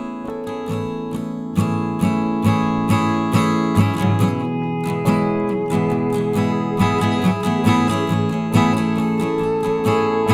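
Background music: acoustic guitar picking and strumming with a steady rhythm.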